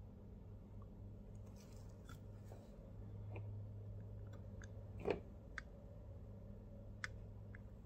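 Quiet handling sounds of soldering a stained glass panel: a soldering iron and a spool of solder being moved and set against the glass, giving scattered light clicks and taps over a low steady hum. The sharpest tap comes about five seconds in.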